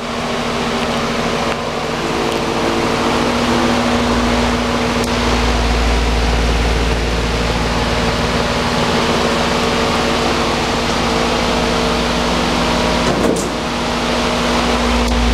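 Large wall-mounted three-blade exhaust fan running steadily: a rush of moving air over a steady electric motor hum. A low rumble joins about four seconds in.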